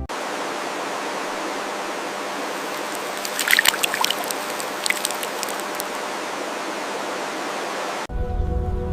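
Stream water running steadily, with a cluster of sharp splashes and clicks in the middle. Music cuts back in abruptly near the end.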